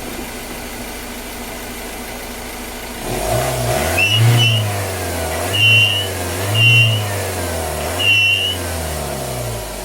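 Ford Everest turbodiesel engine idling, then revved in four quick blips starting about three seconds in. Each rev brings a short high whistle: boost air leaking from a split turbo hose.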